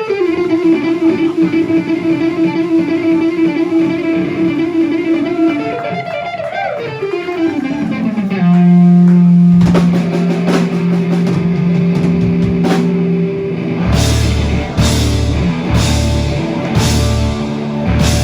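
Live blues-rock band. An electric guitar holds long sustained notes, sliding down in pitch into each of them twice. Drums come in about ten seconds in, and near the end the full band hits heavy accented chords about once a second.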